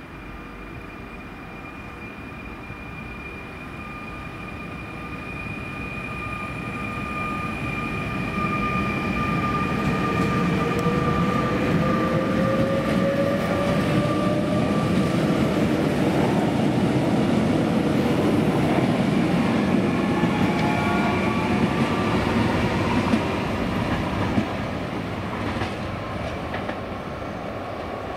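Fertagus Series 3500 double-deck electric multiple unit pulling away and accelerating past: an electric traction whine that glides upward in pitch as it gathers speed, over wheel-on-rail rumble and clatter that grows loud as the train passes close and then fades as it draws away.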